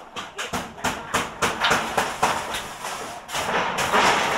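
Hammering and clatter of house repair work: rapid, irregular knocks, about four or five a second.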